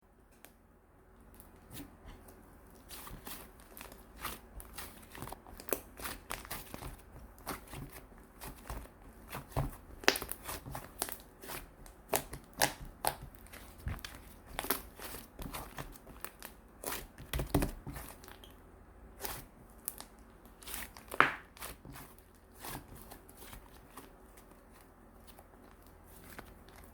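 Chocolate slime being squished and stretched by hand, giving irregular sticky pops and crackles, some much louder than others.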